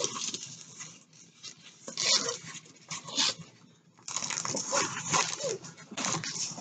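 Crinkling and rustling of a rolled diamond-painting canvas and its plastic cover film being unrolled and handled, in irregular bursts with a short lull in the middle. A few brief low whine-like sounds are mixed in.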